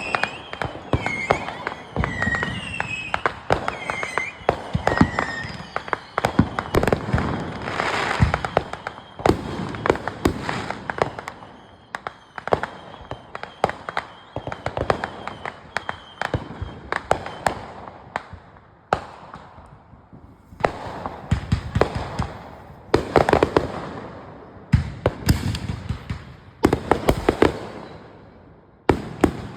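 Consumer fireworks going off: rapid clusters of sharp bangs and crackling pops, one after another. Short high whistles glide up and down in the first few seconds.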